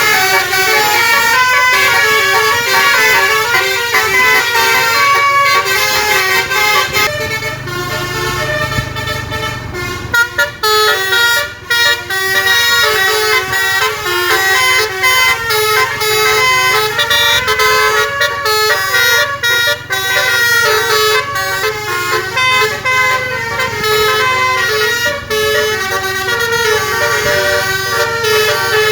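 Telolet horn, a multi-tone musical air horn, playing a fast tune of short stepping notes without a break, over a low rumble. The sound dips briefly a few times about ten to twelve seconds in.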